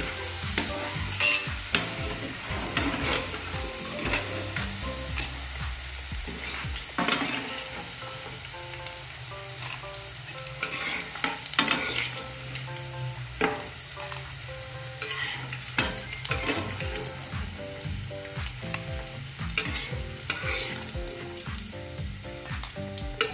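Shoestring fries sizzling in hot oil in a non-stick frying pan as they are lifted out at the end of frying. Metal spatulas scrape and clink against the pan again and again.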